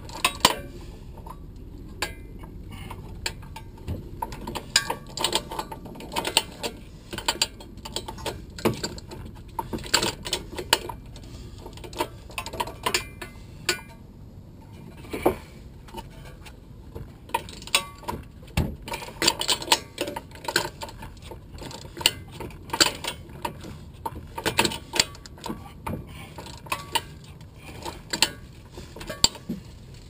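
Wrench clicking in short runs of quick strokes as the rear wheel hub's mounting bolts are backed out from behind the hub, with metal clinks in between.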